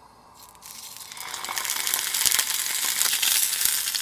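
Clamato-soaked steak searing in hot oil in a nonstick frying pan. The sizzling and crackling starts faintly about half a second in, then grows louder and steadier from about a second in, with a few sharp pops.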